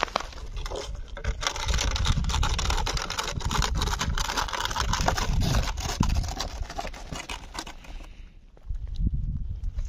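A cat eating in the snow, its chewing a quick, irregular run of crunches and clicks that pause briefly near the end.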